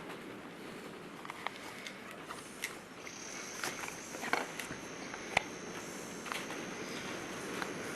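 Steady hiss of wind and rain on a garage roof, with scattered light clicks and knocks of hand work, and a faint high steady tone coming in about three seconds in.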